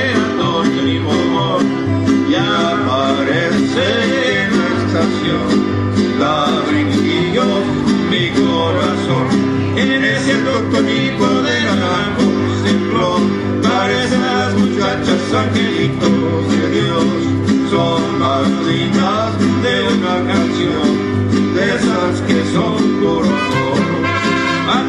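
Live mariachi band playing a song: a steady plucked bass beat from the guitarrón under strummed guitars, with melody lines moving above.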